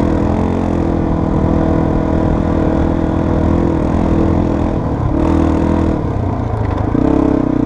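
Yamaha TT-R230 trail bike's single-cylinder four-stroke engine running under throttle up a sandy trail, the revs easing off briefly about five seconds in and picking up again near the end.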